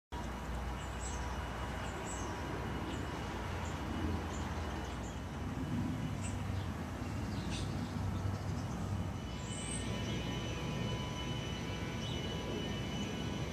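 Amusement arcade ambience: a steady low rumble and hum of running machines, with faint electronic tones and occasional short high chirps.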